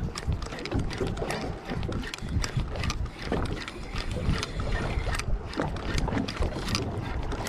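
Wind buffeting the microphone and water slapping against a small open boat, with many small irregular clicks and knocks throughout.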